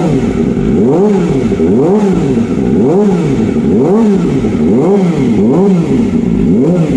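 Kawasaki ZX25R inline-four engine revved repeatedly through an aftermarket slip-on exhaust, the revs rising and falling about once a second, seven times.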